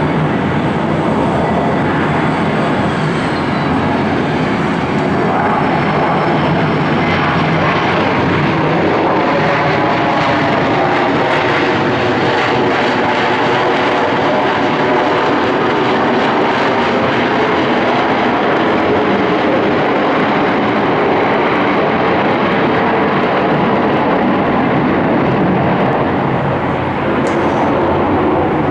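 Jet airliner engines running loud and steady, with a faint whine gliding in pitch.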